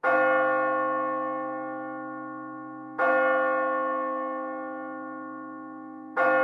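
A bell tolling: three strokes about three seconds apart, each one ringing out and slowly fading.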